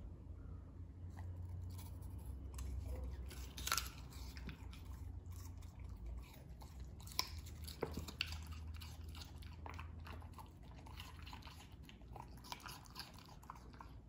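Corgi eating vegetables from a plastic slow-feeder bowl: chewing and crunching with many scattered clicks, a few of them sharper, about four and seven seconds in.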